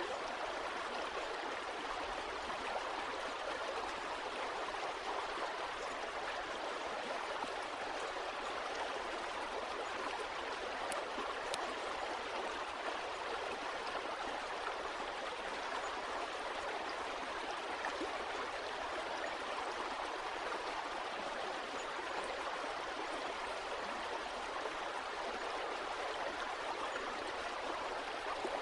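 Flowing water from a stream or brook, a steady even rush and babble that neither swells nor breaks.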